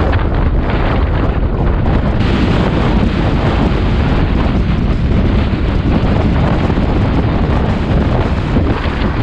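Strong wind buffeting the microphone: a loud, rough rush of noise with no steady tone.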